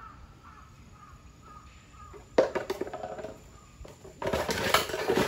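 Jaguars snarling and growling at close range: one sudden harsh outburst about halfway through, then a longer, louder one near the end.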